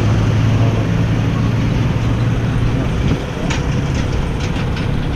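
A motor vehicle engine running steadily with a low hum, easing slightly a little over three seconds in, with wind noise on the microphone.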